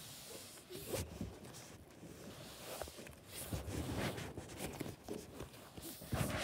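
Slime being squeezed and kneaded by hand: soft, irregular squishing and crackling, a little louder around the middle.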